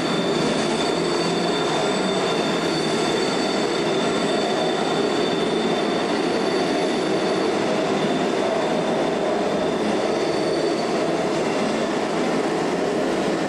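Subway-style ride train running on its rails: a steady rumble of wheel and track noise with thin, high, steady squealing tones above it.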